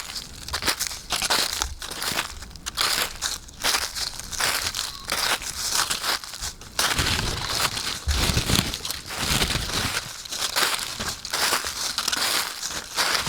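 Footsteps crunching through dry fallen autumn leaves, each step a crackling, crinkling crush of leaves underfoot in a steady walking rhythm.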